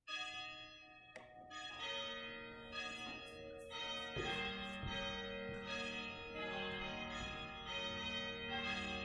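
Church bells ringing, several bells struck in turn with their tones ringing on and overlapping.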